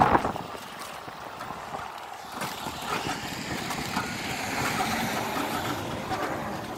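Running noise of a moving road vehicle heard from on board: engine and road noise that grows louder from about two and a half seconds in.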